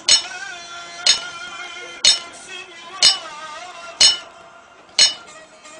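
Hammer striking metal in a steady beat of one blow a second, each a sharp clink that rings briefly: a farrier's hammer beating a horseshoe.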